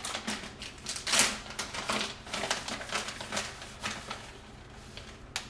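Plastic bag of shredded sharp cheddar being handled and opened: a dense run of irregular crinkles and clicks, loudest just after a second in, fading out near the end.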